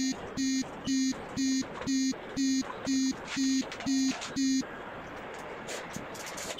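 Electronic buzzer beeping in a steady rhythm, about two short buzzy beeps a second, stopping about four and a half seconds in; most likely the alert buzzer of a CNC hot wire foam cutting machine.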